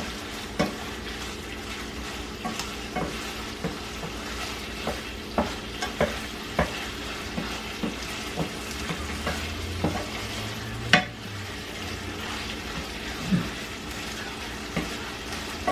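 Chicken chunks frying in oil and butter in a pan, a steady sizzle with irregular clicks and scrapes of a utensil turning the pieces against the pan; the loudest knock comes about eleven seconds in.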